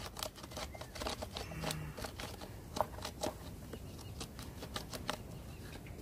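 Bow drill being worked: the wooden spindle turning in the fireboard notch with scattered clicks and scraping, running not smoothly but at least spinning.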